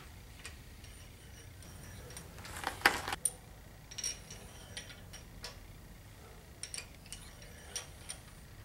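Steel pushrods being dropped through the heads into the lifters of a Chevy 350 small-block: scattered light metallic clicks and taps, some with a brief high ring, the loudest cluster about three seconds in.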